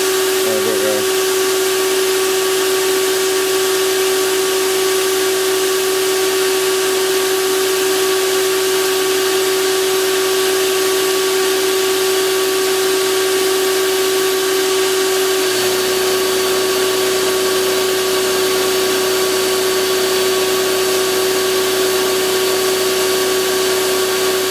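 Sandblasting cabinet in use: a steady hiss from the blast nozzle over a steady humming tone. About two-thirds of the way through, a low hum joins in underneath.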